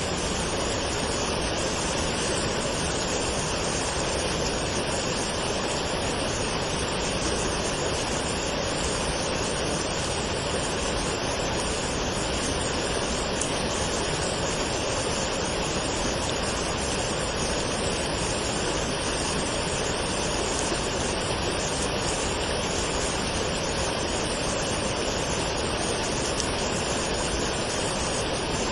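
Waterfall, water pouring and splashing in a steady, unbroken rush.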